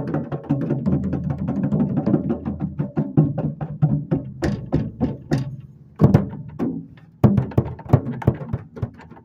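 Drum kit being played, heard from right under a Gretsch snare drum with its snare wires on. A busy run of quick strokes gives way about four seconds in to louder, separate hits, the sharpest about six and seven seconds in.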